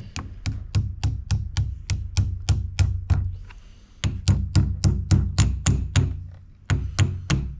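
Ball-peen hammer tapping a new hydraulic seal into the steel gland of a bulldozer lift cylinder: a quick run of light strikes, about four or five a second, working the tight seal in a little at a time. The tapping pauses briefly about three seconds in and again just after six seconds.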